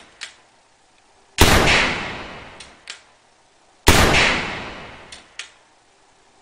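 Evanix AR6 .22 PCP pistol fired twice, about two and a half seconds apart, each sharp report ringing down over about a second. Before the second shot, and again near the end, come pairs of light clicks as the hammer is pulled back for single-action firing.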